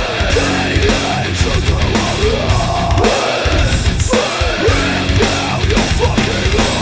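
Heavy metal music with distorted guitar and a driving drum kit.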